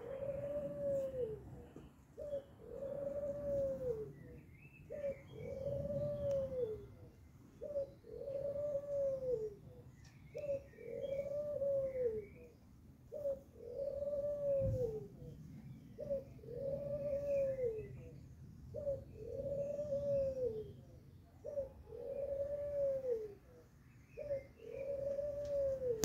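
A dove cooing over and over in a steady rhythm: a short coo followed by a longer coo that rises and falls, repeated about every two and a half seconds.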